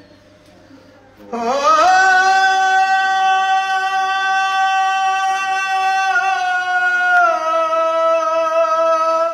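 Elderly man singing a noha, a devotional lament, with no accompaniment: one long held note that slides up into place about a second in, holds steady, then steps down a little twice in the last few seconds before breaking off.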